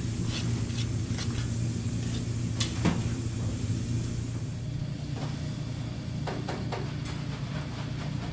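Steady low hum with scattered light clicks and knocks, a few clustered together near the end.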